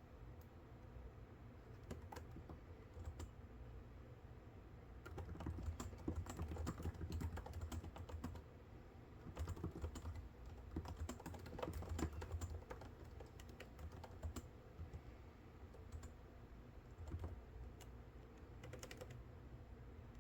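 Typing on a computer keyboard in uneven bursts of rapid key clicks, with short pauses and scattered single clicks between them, over a low steady hum.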